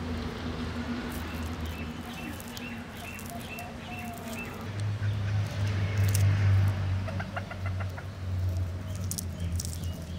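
Chickens clucking and small birds chirping, over a steady low hum that grows louder about halfway through.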